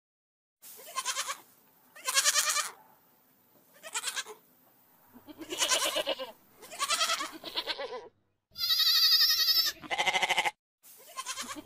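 A goat bleating again and again, about nine short quavering bleats with brief pauses between them. One longer, higher and louder call comes about two-thirds of the way through.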